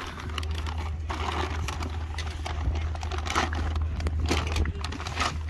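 Clear plastic bag crinkling and plastic Trackmaster toy trains clacking together as a hand rummages through the bag, with irregular clicks and rustles over a steady low hum.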